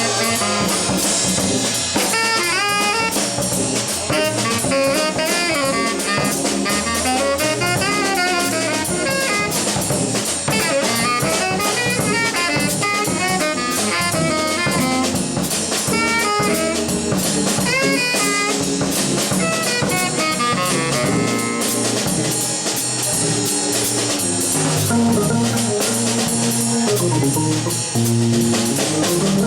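Live jazz trio playing: a drum kit busy with cymbals and snare under a melodic instrument running fast lines, which settle into a lower, steadier line about two thirds of the way through.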